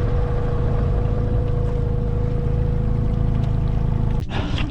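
Boat motor running steadily: a low rumble with a steady tone over it, which breaks off abruptly near the end.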